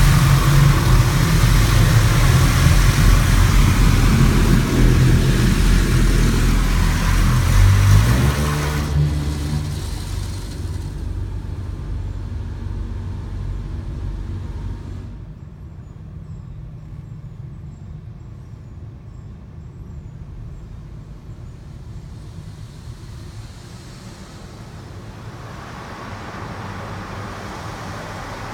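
Automatic car wash heard from inside the car: water spray and wash equipment beating on the car with a loud hiss and heavy low rumble. About nine seconds in it fades, dropping to a quiet low rumble by about fifteen seconds, then a hiss builds again near the end.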